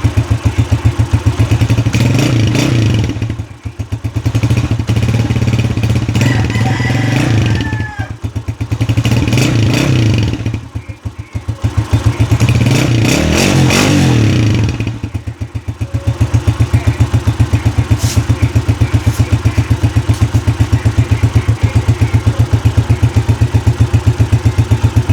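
Single-cylinder motorcycle engine, a Honda TMX breathing through a Platino stock exhaust pipe, idling with a steady exhaust putter. The throttle is blipped about four times in the first fifteen seconds, the engine note rising and dropping back each time, and then it settles into a steady idle.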